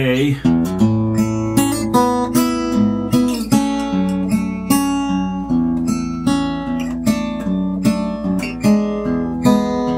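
Kay 000-size acoustic guitar, X-braced, with a solid spruce top and laminated mahogany back and sides, played with picked notes and chords at a steady pulse.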